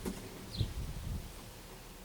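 A bird's single short chirp, falling in pitch, about half a second in, over irregular low thumps and rumble.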